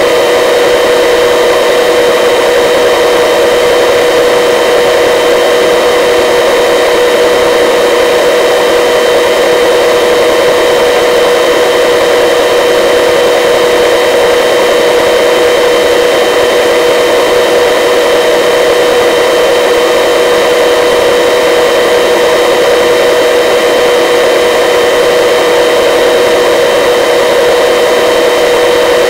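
Helicopter cabin noise in flight: a loud, steady drone with several constant whining tones, unchanging throughout.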